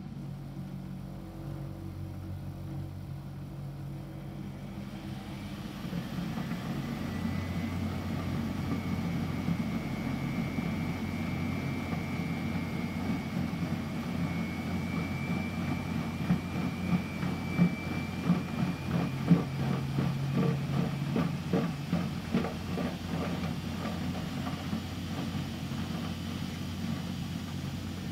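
Miele Novotronic W715 front-loading washing machine rinsing a wet double duvet: steady motor hum with water moving in the drum. About five seconds in it grows louder and a faint high whine sets in, and a run of irregular knocks follows in the middle.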